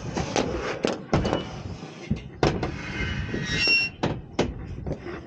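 Knocks, clatters and scrapes of hands-on work at a solar panel on a metal roof, with a brief high squeak about three and a half seconds in.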